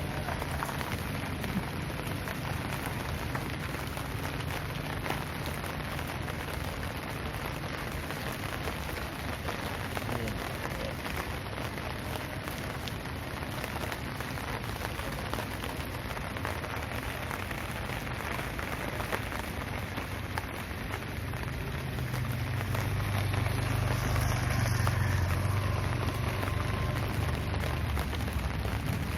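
Steady rain falling and pattering on surfaces. A deep rumble swells up for several seconds near the end.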